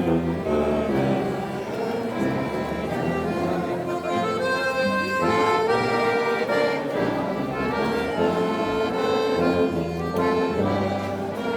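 Accordion playing a folk tune: a moving melody over held chords and bass notes.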